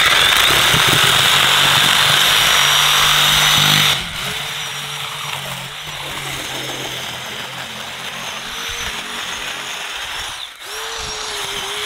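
Corded DeWalt jigsaw sawing through the thick, armoured scaled skin of an alligator gar. It is loudest for the first four seconds, then drops to a lower level with a wavering motor tone as the blade works through the hide.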